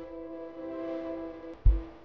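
Background music: a sustained chord of held notes, with one deep bass hit near the end.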